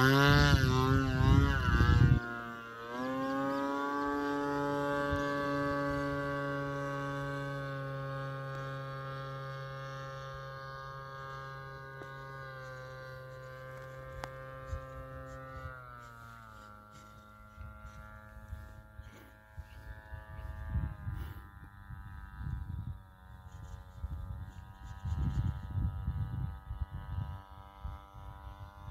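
Model airplane's two-stroke gasoline engine: loud with its pitch falling over the first two seconds, then running on steadily at a lower pitch and slowly fading, stepping down in pitch again about halfway. Wind rumbles on the microphone in the second half.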